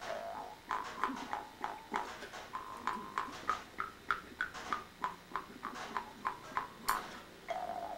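Amis mouth harp played in a quick, even rhythm of twangs, about three a second. The note of each twang shifts slightly as the player's mouth reshapes the tone, with one sharper click about seven seconds in.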